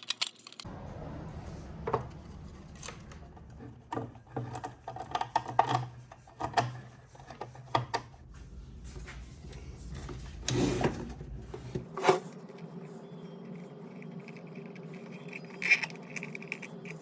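Hands working on small plastic and metal parts inside an air filter's housing: scattered clicks, taps and rubbing over a steady low hum. The background hum changes abruptly about twelve seconds in.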